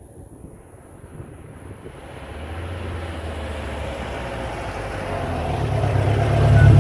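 1956 Volkswagen Beetle's air-cooled flat-four engine, a 2276 cc build with a Sidewinder exhaust, driving up, its low rumble growing steadily louder as the car approaches and pulls up alongside.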